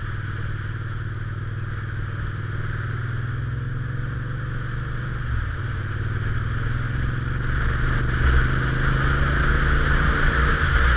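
Motorcycle engine running under way, heard from on the bike, with wind and road rush. The engine note dips briefly about halfway, then engine and rush grow louder toward the end as the bike speeds up.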